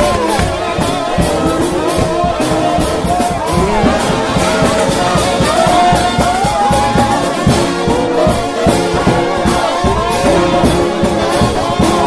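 A gospel shout band of trombones plays a fast, lively tune with sliding, bending notes over a steady driving drum beat.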